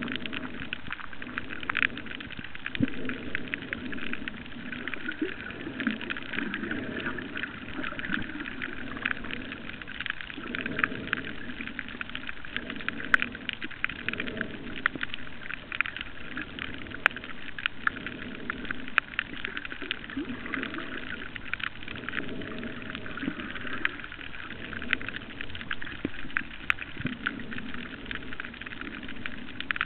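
Underwater reef ambience heard through a camera housing: a dense, steady crackle of small clicks over a muffled low rumble that swells and fades every second or two.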